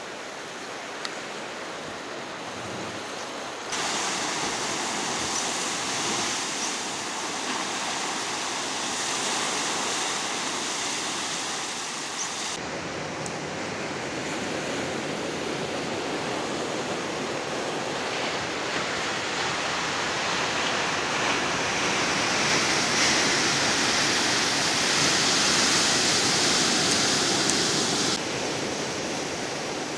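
Atlantic surf breaking and washing over a rocky shore, a continuous rushing of waves. It jumps suddenly louder about four seconds in, thins out partway through, builds again and drops off sharply near the end.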